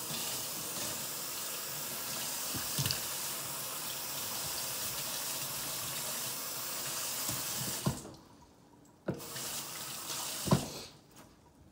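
Kitchen faucet running into a stainless steel sink while a cleaned crappie is rinsed; the steady rush of water falls away about eight seconds in. A few sharp knocks from the fish and board against the sink, the loudest near the end.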